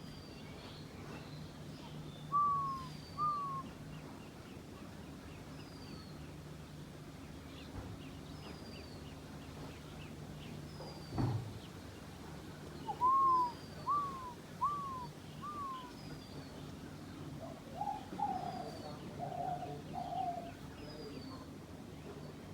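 Dove calling in short arched coo notes: two, then after a pause a run of four, then a longer wavering phrase. A second bird gives a thin high falling note every few seconds, and a single knock sounds about midway over a faint steady hum.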